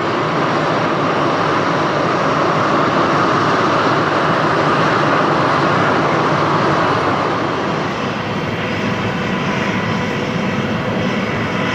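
Jet engines of an Airbus A321 running loud and steady on its takeoff, a wide rushing noise strongest in the middle range. A thin steady whine joins in about two-thirds of the way through.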